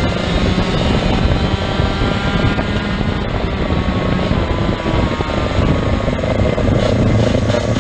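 Racing kart engine running at high revs under full throttle, its buzzing pitch climbing slowly as the kart accelerates down the straight.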